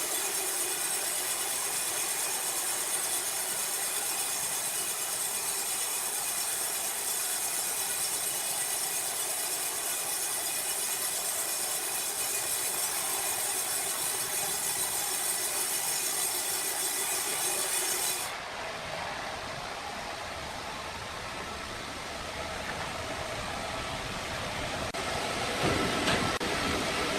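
Sawmill machinery running steadily with a high whine. About two-thirds of the way through the sound switches abruptly to a quieter mechanical noise with a few knocks near the end.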